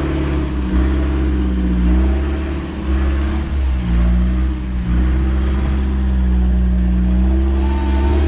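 Four-wheel-drive engine revving under load in surges, dipping and rising three times, then held at steady high revs from about five seconds in, as a bogged Mitsubishi Triton is pulled out of deep mud on a recovery strap.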